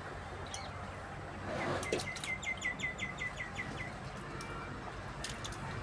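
A bird calls a quick run of about ten short, repeated chirps lasting just under two seconds, a few seconds in. A few faint clicks or knocks sound on either side of it.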